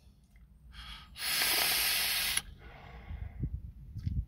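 A man taking a hit from a vape pen and blowing out the vapour: a loud breathy hiss starts about a second in and lasts just over a second, then trails off.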